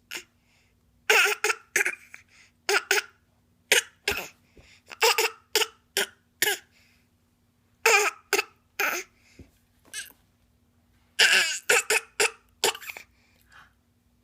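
A young child's fake coughing: many short, forced coughs, some single and some in quick runs of two or three, with short pauses between.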